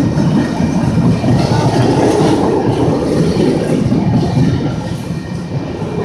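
Empty flatcars of a freight train rolling past, their steel wheels running over the rails in a steady, loud noise.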